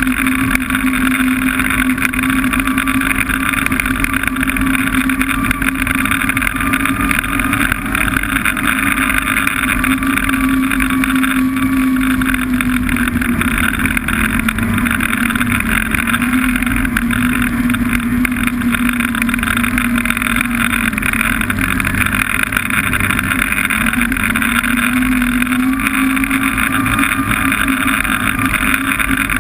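Snowmobile engine running steadily at riding speed. Its pitch drops a little about halfway through and rises back near the end, as the sled eases off and picks up speed again.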